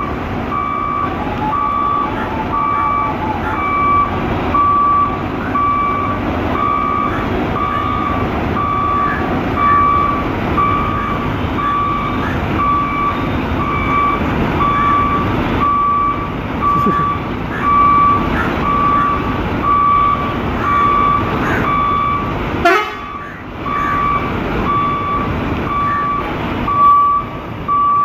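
Scania coach's reversing alarm beeping about once a second, a steady single tone, over the rumble of its diesel engine as the bus backs and manoeuvres. The beeping breaks off briefly with a sharp sound about 23 seconds in, then starts again.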